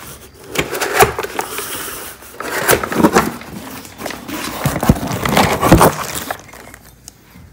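A long cardboard shipping box being opened and handled by hand: irregular scraping, tapping and rustling of cardboard and the plastic wrap inside. The noise stops about six seconds in.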